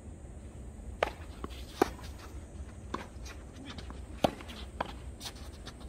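Tennis ball being struck by rackets and bouncing during a doubles rally: a series of sharp pops roughly a second apart.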